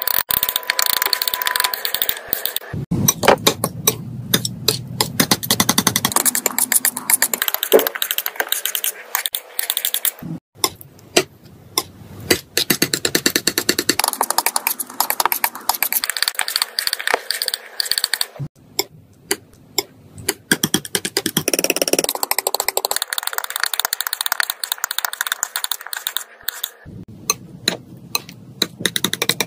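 Metal palette knife tapping, slapping and scraping through thick paint on paper: a fast, irregular run of sticky taps and smears, in short takes cut together every few seconds.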